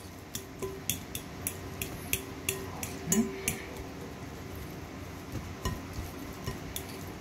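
A utensil clinking against a bowl while stirring and mashing fermented red bean curd into a marinade, in quick regular strokes of about three a second that thin out and grow fainter after about halfway.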